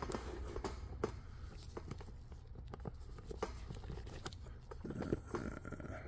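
Faint handling noise from a camera being repositioned: small irregular clicks, taps and rustles scattered throughout, over a low steady hum.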